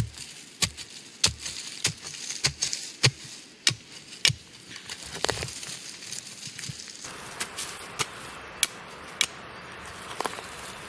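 Metal blade of a Chafon compact emergency shovel stabbed again and again into woodland soil, a sharp chop about every two-thirds of a second, breaking ground for a Dakota fire pit. After a short break, a few lighter strokes follow at the same pace.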